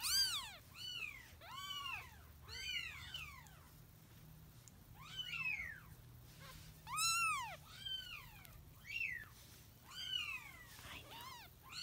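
Very young kitten crying with repeated high, thin mews, about one a second, each rising and then falling in pitch, with a short pause a few seconds in.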